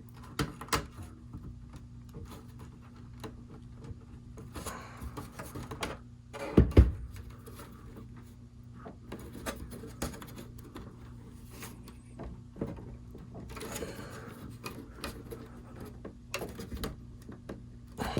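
Handling noise from working a power-supply cable connector into a NAS enclosure: scattered clicks, taps and rubbing of plastic and cables, with one louder knock about six and a half seconds in. A steady low hum runs underneath.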